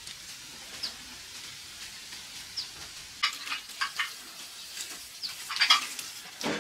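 Plastic food bags crinkling and rustling in short bursts as they are handled, over a steady faint hiss, with a small bird giving a short high chirp a few times.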